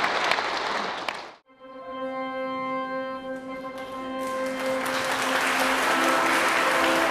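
Congregation applauding, cut off abruptly about a second and a half in; then instrumental music with long held notes, with applause rising again under it from about four seconds in.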